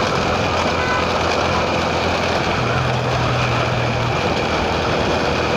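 Steady road noise from a moving vehicle: an even rush of wind with a low engine hum underneath.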